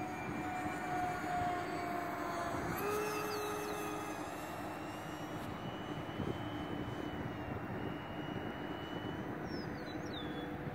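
Electric ducted fans of a Dynam Turbojet 550 RC model jet whining in flight overhead, over a wide rush of wind noise. The pitch of the whine shifts about three seconds in.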